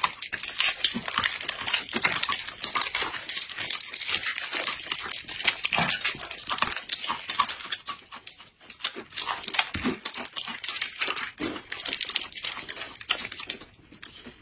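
Thin plastic snack wrappers crinkling and tearing as they are opened, mixed with the crunch of crisp fried spinach dough twists (mahua) being bitten and chewed. The crackling is dense and goes on almost without pause.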